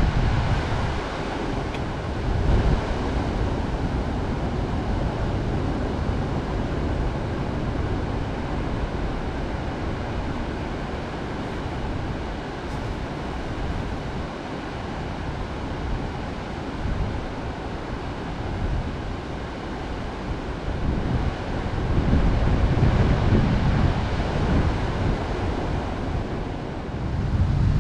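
Wind buffeting the microphone over the wash of sea surf on the shore. The gusts are heavier near the start and again near the end.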